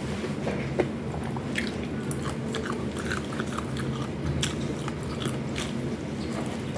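Close-up mouth sounds of eating: biting and chewing fried food, with many short crisp clicks and crunches scattered irregularly over a steady low hum.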